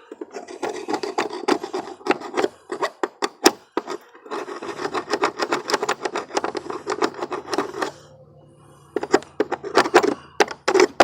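Rapid scraping and scratching of a metal tool against a car battery's corroded terminals, knocking off the corrosion buildup. The strokes stop briefly about eight seconds in, then start again.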